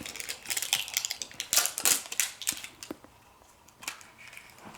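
Plastic toy blind-pack packaging being handled and opened by hand: a run of irregular crinkles and clicks for about three seconds, then only a few faint ones.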